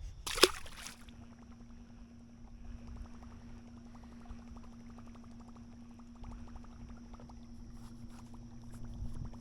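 Water lapping and sloshing against a small fishing boat, with faint clicks and a steady low hum. A brief loud swish comes about half a second in.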